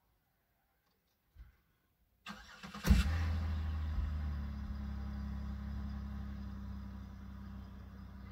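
A car engine starting about two seconds in: the starter cranks briefly, the engine catches sharply, then settles into a steady idle that slowly quietens.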